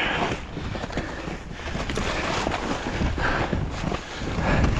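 Skis swishing and crunching over snow in uneven strides, with wind buffeting the microphone.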